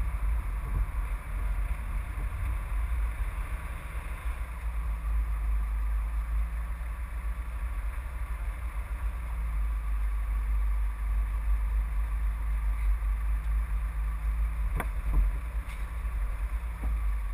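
Steady low rumble of a moving car, picked up by a camera mounted outside on the bonnet, with wind buffeting the microphone. A single sharp click about fifteen seconds in.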